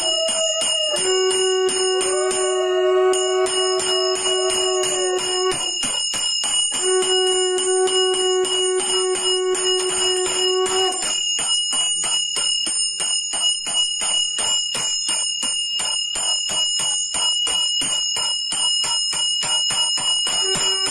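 Brass puja hand bell rung continuously, its clapper striking many times a second so that it rings without a break. Under it a long held low tone sounds twice for about four seconds each, then stops about halfway through.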